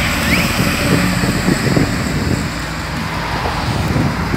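Diesel engine of a medium-duty cargo truck running as the truck drives past close by and pulls away, with tyre and road noise.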